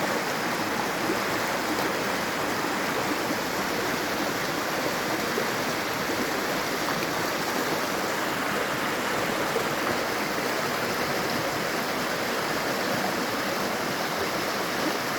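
River water rushing steadily, a constant even roar with no breaks.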